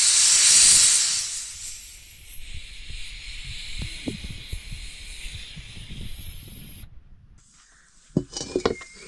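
Pressure cooker on a wood fire venting steam with a steady hiss, loudest in the first second or so and then fading, cutting off abruptly about seven seconds in. A few knocks near the end as a metal wok is set on the fire.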